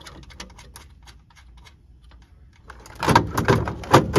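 Light scattered clicks, then about three seconds in a loud rattling clatter of metal and plastic as an MEI bill validator is worked loose and pulled back off its mounting studs in a vending machine door.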